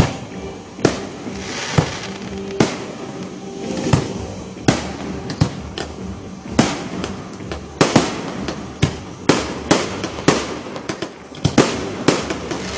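Aerial firework shells bursting in an irregular run of sharp bangs, more than a dozen, coming closer together in the second half, with crackling between them.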